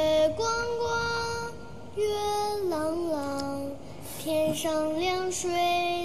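A high voice singing a slow melody, holding long notes and sliding between pitches, with a short pause near the middle.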